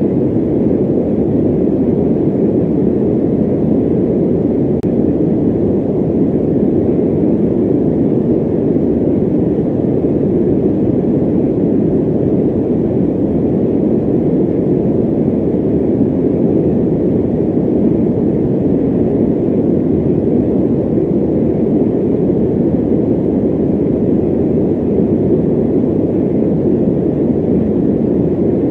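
Electric fan running: a steady, low rushing of moving air that does not change.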